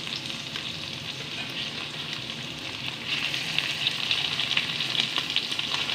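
Chicken pieces and fresh greens frying in a wok: a steady sizzle with fine crackling pops, growing louder about halfway through.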